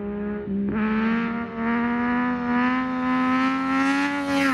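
2022 Yamaha MT-09 SP's inline-three engine through a Spark exhaust with no dB killer, pulling on the throttle during a wheelie toward the camera. The note dips briefly about half a second in, then comes in louder and climbs slowly in pitch as the bike approaches.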